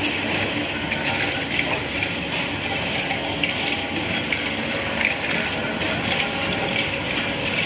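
Industrial egg breaking and separating machine running: a steady, dense clatter of many small clicks from its mechanism over a continuous rushing noise.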